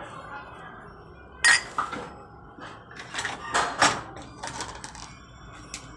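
Dishes and cutlery clinking and knocking together as they are handled. There is a string of sharp clatters, loudest about one and a half seconds in, with a cluster of clinks between about three and four seconds.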